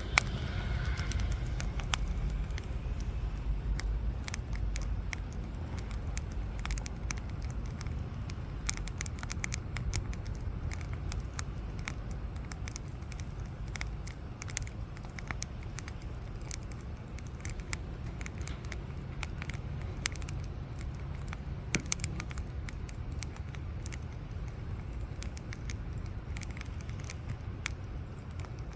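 Wood campfire crackling and popping in scattered sharp snaps over a steady low rumble.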